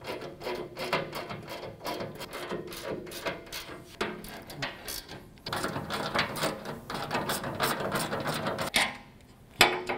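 Hand socket ratchet clicking in rapid runs as the door-mount bracket bolts are snugged up, not fully tightened. The clicking stops about nine seconds in and is followed by a single knock.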